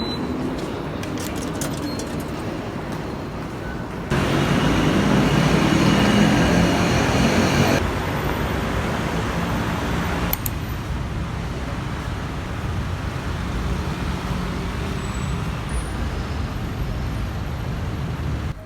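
Steady vehicle and traffic rumble. It jumps louder about four seconds in, drops back a few seconds later, and shifts again near the middle, as if across cuts.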